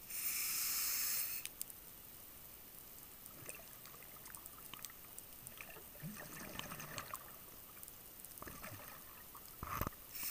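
Scuba diver's regulator breathing heard underwater: a loud hiss lasting about a second at the start and again near the end, with softer bubbling and scattered small clicks in between.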